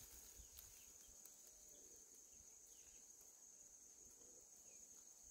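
Near silence, with a faint steady high-pitched drone of insects.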